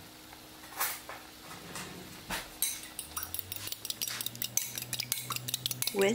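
Egg being whisked with a metal fork in a small glass bowl: a couple of single knocks, then from about two and a half seconds in a rapid run of fork-on-glass clinks.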